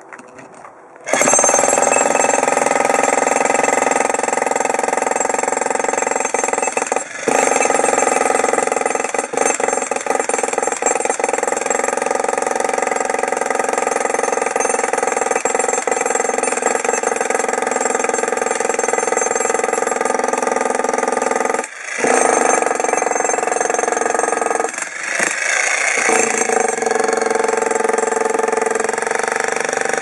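Arksen 1500W electric demolition hammer breaking up a concrete slab, its bit hammering into the concrete. It starts about a second in and runs almost continuously, stopping briefly a few times.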